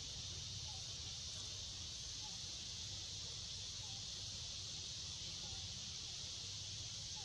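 Steady, unbroken high-pitched insect chorus, with a faint low rumble underneath.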